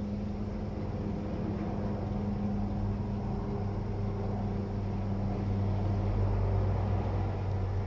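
A steady low machine hum that deepens slightly about halfway through.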